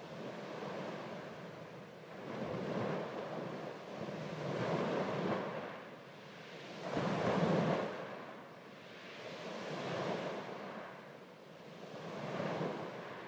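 Small waves washing in and out over sand in shallow water, swelling and ebbing every two to three seconds, with the loudest wash about halfway through.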